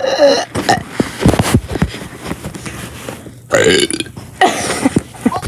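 A person burping deliberately, two loud drawn-out burps: one right at the start and a longer one beginning about three and a half seconds in.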